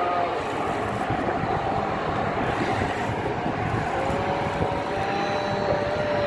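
Steady rumble of a boat engine running, with a faint thin whine over it in the last two seconds.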